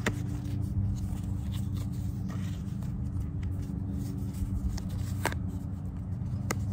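Fountain Tarot cards being slid one by one from the front of a hand-held fan to the back, with soft rustles and a few sharp card snaps, over a steady low hum.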